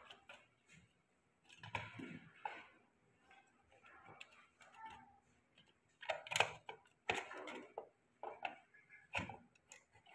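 Plastic clicks and knocks from a small appliance's plastic housing being handled as its vented cover is pressed and turned onto the base, in irregular bursts that are loudest about six to seven seconds in.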